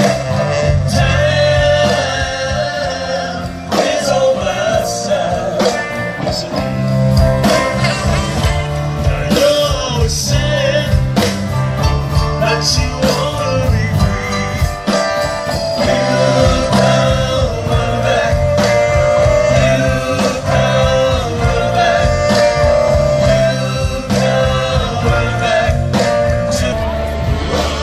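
Live amplified band playing a blues-rock number, a man singing over electric guitars, saxophone, keyboard, bass and drums.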